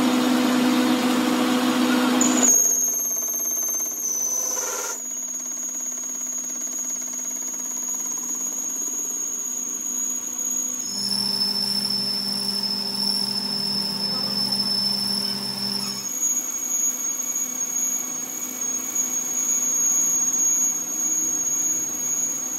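Metal lathe turning a steel shaft while the cutting tool takes a cut, running with a steady high-pitched squeal. The squeal's pitch jumps abruptly a few times.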